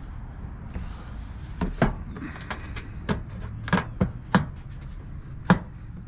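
Sharp knocks and snaps, about seven at irregular intervals: a plastic inner fender liner being pushed and tapped into place in a truck's wheel well.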